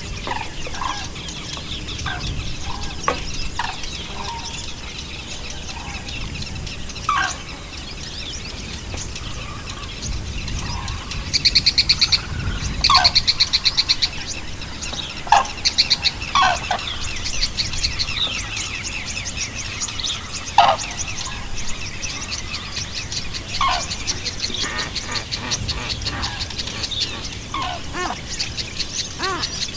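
Several birds chirping and calling. Near the middle come two loud, rapid trills, and short falling calls recur every few seconds.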